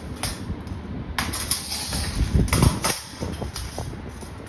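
Stainless steel dish-rack frames and wire panels being handled and fitted together: metal clinking, knocking and scraping, loudest a little past halfway through.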